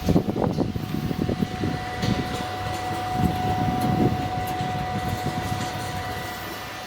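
Peanut roasting machine running: a steady motor whine over an irregular low rumble, the rumble easing off in the last couple of seconds.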